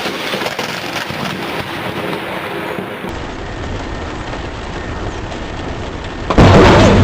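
Thunderstorm: steady rain with thunder rumbling after a lightning strike. About a second before the end a sudden, much louder blast comes in with a steady low hum under it.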